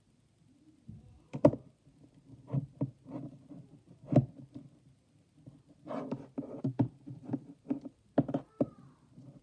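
Hands handling a toy doll and parting its hair: irregular soft knocks and clicks with rustling, a few sharper taps spread through.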